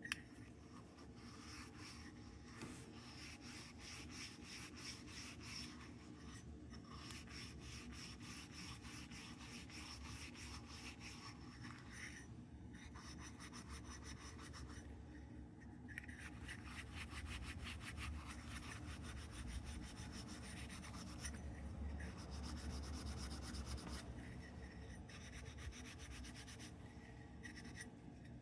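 Brass lantern burner being rubbed and polished by hand: quick back-and-forth scrubbing strokes that pause briefly a few times.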